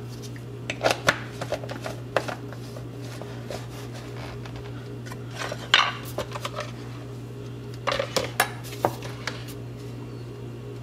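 Scattered clinks and knocks of a NutriBullet blender's cup, blade base and motor base being handled and fitted together, over a steady low hum.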